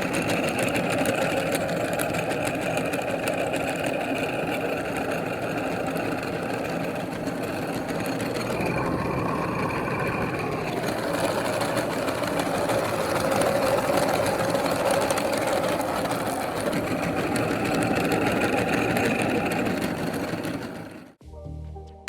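Electric meat grinder running steadily, its motor whirring without a break, then cutting off suddenly near the end.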